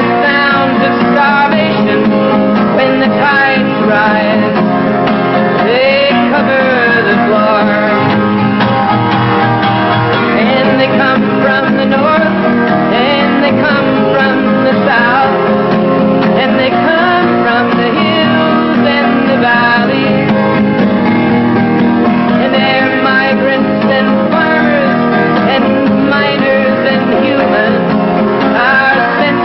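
Live folk song: a man singing to acoustic guitar, the voice and guitar continuing without a break.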